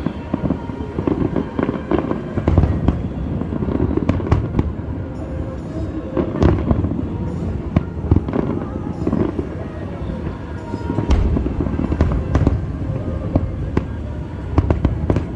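Fireworks display: a steady run of booming shell bursts and sharp crackling bangs, with deep booms about two and a half, six and a half, and eleven seconds in.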